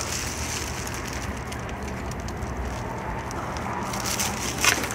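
Clear plastic wrapping crinkling as it is handled and cut away from a potted mango plant with a small knife, with one sharp crackle near the end.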